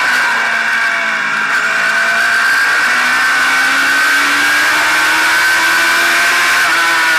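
Oval-track race car engine, close to the hood-mounted microphone, under racing load: its pitch sags through the turn, then climbs steadily as it accelerates down the straight, easing back near the end.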